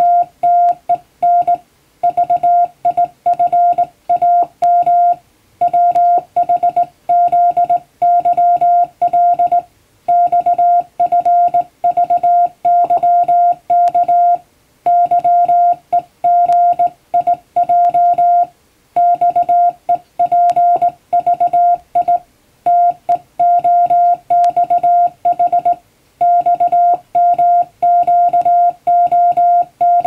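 Morse code sidetone from a hand-operated telegraph key: a single steady beep keyed on and off in dots and dashes. It comes in five-letter code groups of random letters, with short pauses between the groups.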